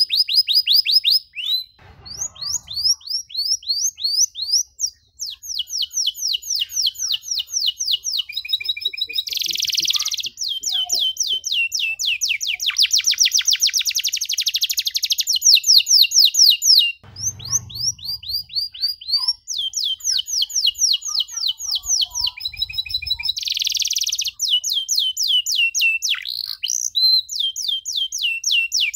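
Domestic canary singing long phrases of rapid, repeated trilled notes, one tour running straight into the next. The song breaks off briefly about two seconds in and again about seventeen seconds in, with a soft low thump in each break.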